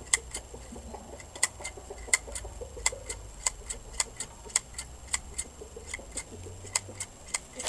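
Steady, rapid ticking, about three sharp clicks a second, even and unchanging.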